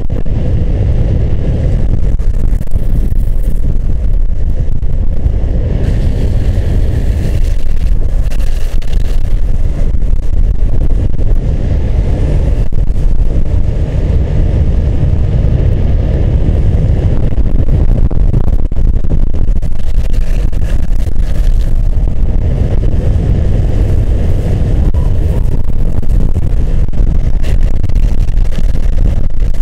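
Loud, steady wind rumble buffeting the microphone at downhill skateboarding speed, mixed with the roar of wheels rolling on asphalt.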